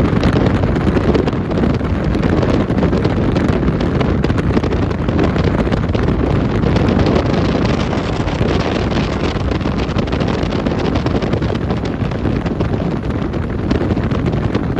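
Steady rush of wind buffeting the microphone on a moving boat, mixed with the dull running noise of the boat's motor.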